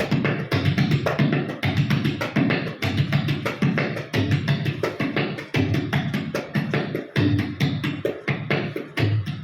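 Tabla played to imitate a running train: a fast, even stream of sharp strokes, with deep bayan strokes that swell in pulses about once a second like wheels over rail joints.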